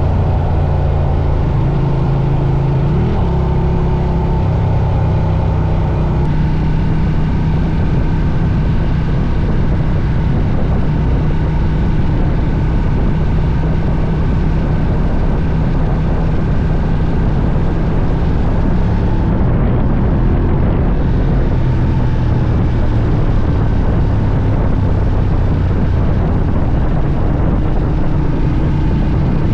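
Ducati Diavel's Testastretta twin-cylinder engine running as the bike is ridden. The engine note shifts pitch a few times in the first several seconds, then holds fairly steady at cruising speed.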